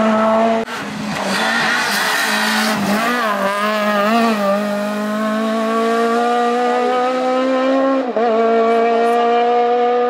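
Rally car engine at high revs under hard acceleration, its pitch climbing steadily, with a short dip for an upshift about eight seconds in. A rasp of tyre noise runs through the first few seconds.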